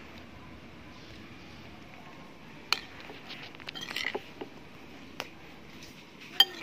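A metal spoon clinking and scraping against a ceramic bowl while spice paste is stirred into raw fish pieces. There are a few sharp taps: one a little under three seconds in, a quick cluster around four seconds, and a louder one near the end.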